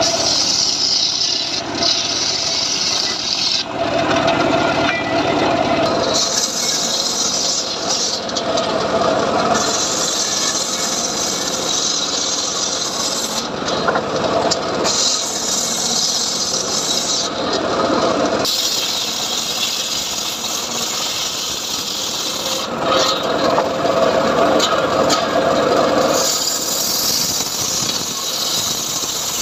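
Homemade engine-driven sawmill saw (gergaji srekel) cutting johar wood. Louder rasping cutting passes of a few seconds each come and go over the machine's steady running.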